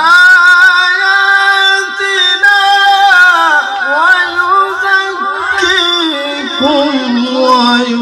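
Male Quran reciter chanting a long, drawn-out melodic phrase of recitation (tilawat) into a microphone. The voice leaps up in pitch at the start and holds high with wavering ornaments. About halfway it drops and winds down through quick melodic turns, ending lower.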